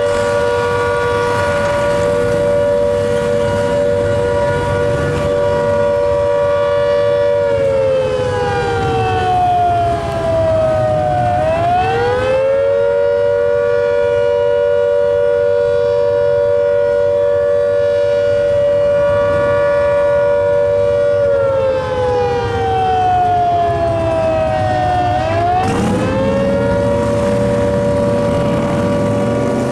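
Fire station's motor-driven rotor siren sounding a fire call-out: a steady two-note wail held for several seconds, then sinking slowly in pitch and quickly climbing back to the held note, twice.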